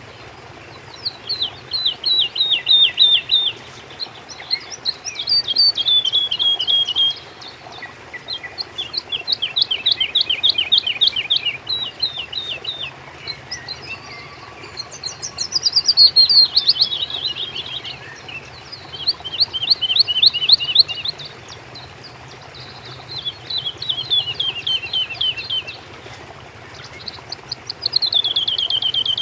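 A songbird singing, repeating a phrase of rapid, high downward-sliding notes about seven times, each phrase lasting two to three seconds with short gaps between. A faint steady background hiss runs underneath.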